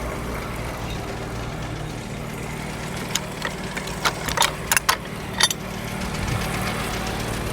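The engine powering a Frick sawmill idles steadily, with several sharp clanks and knocks between about three and five and a half seconds in as the log is rolled over on the carriage. The engine picks up slightly near the end.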